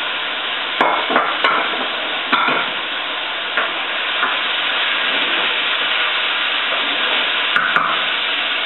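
Chicken and sliced smoked sausage sizzling steadily in a pot of hot olive oil. A few sharp clicks of the utensils against the pot come about a second in and again near the end as the meat is stirred.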